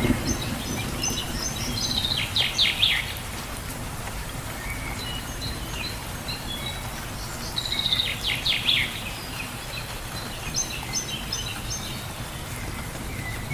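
Steady rain falling, with songbirds chirping over it in quick runs of high notes, loudest about two seconds in and again about eight seconds in.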